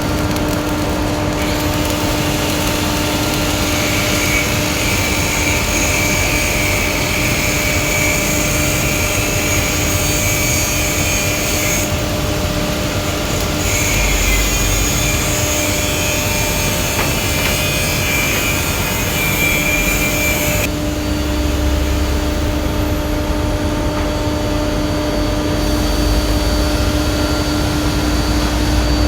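Stick-welding arc crackling and hissing on a pipe joint in two long runs, with a short break about twelve seconds in and a stop about twenty-one seconds in. Under it runs a steady machine drone with a constant hum.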